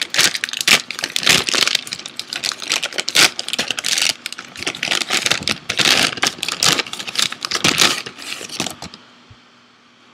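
Package wrapping being crinkled and torn open by hand close to the microphone, a dense run of crackles and rustles that stops abruptly near the end.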